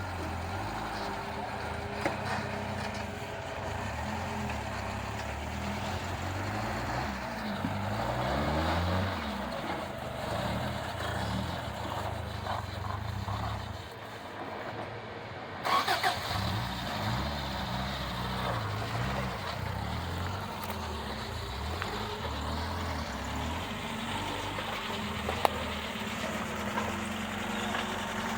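Engines of off-road rock-crawling vehicles idling and revving in repeated rising and falling surges as they work over rocks. A short loud clatter comes about halfway through.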